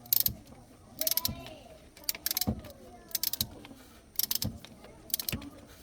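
Metal tools clinking and rattling in short bursts, roughly once a second.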